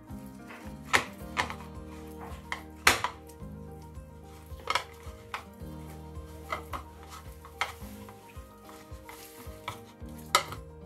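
Fingers kneading and pressing a soft cashew dough on a plate, with irregular sharp taps where the fingers knock against the plate, over soft background music.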